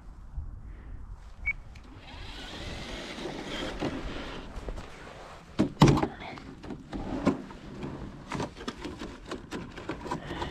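Electric motor of a radio-controlled truck whirring, with several sharp knocks; the loudest knock comes about six seconds in.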